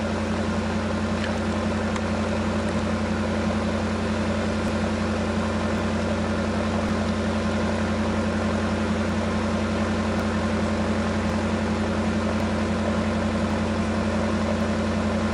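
1984 Datsun/Nissan pickup truck's engine idling steadily, an even low hum that does not change.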